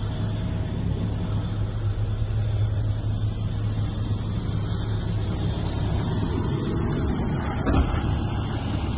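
Hitachi ZX130LCN-6 excavator's diesel engine running steadily with a low hum, with a single knock near the end.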